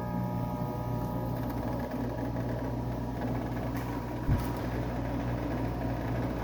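1999 Whirlpool ACM052XH1 5,000 BTU window air conditioner running, its fan and compressor making a steady mechanical noise with an uneven rushing texture. The owner says this noise is just the R-22 refrigerant and that the unit has always made it. A single short knock comes about four seconds in.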